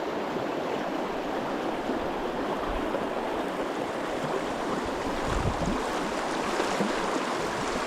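Steady rush of a mountain stream's flowing water, with a few brief low rumbles about three and five seconds in.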